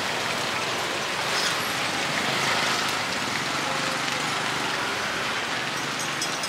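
Busy street-market ambience: a steady wash of traffic and general background noise, swelling slightly a couple of seconds in.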